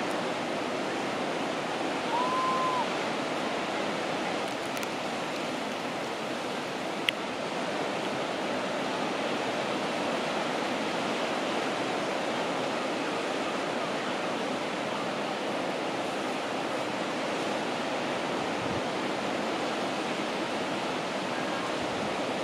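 Steady wash of sea surf breaking on the shore, with a brief high note about two seconds in and a single sharp click about seven seconds in.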